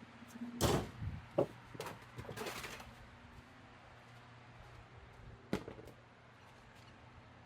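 A few clattering knocks and a short scrape as a drain pan is fetched and handled. The loudest knock comes just under a second in and another about five and a half seconds in, over a low steady hum.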